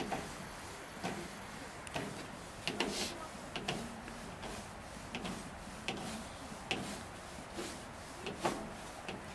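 Kitchen knife knocking on a plastic cutting board as squid is sliced into thin strips: short, irregular taps, about one or two a second.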